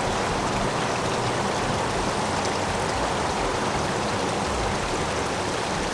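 River water rushing: a steady, even noise with no breaks.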